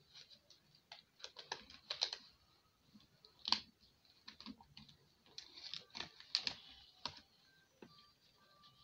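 Irregular clicking and crinkling of a rubber balloon and a plastic bottle being handled as the balloon's neck is stretched over the bottle mouth, with the sharpest click about three and a half seconds in.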